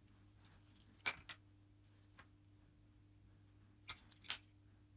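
Light clicks of small wooden parts being handled and set down on a wooden workbench: two pairs of clicks about three seconds apart, over a faint steady hum.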